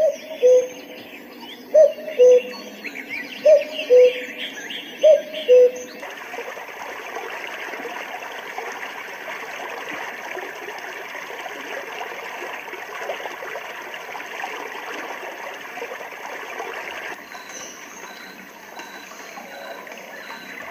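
White noise machine playing a recorded nature track: a bird's two-note call, high then low, repeated every second and a half or so over chirping birdsong. About six seconds in, it cuts abruptly to a steady rush of running water, which changes to a quieter hiss near the end.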